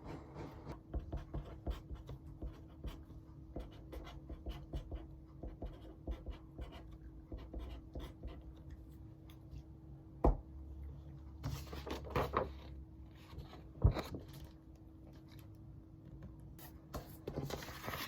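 Pen strokes scratching on paper in quick, irregular runs, with two sharp knocks about ten and fourteen seconds in, over a faint steady hum.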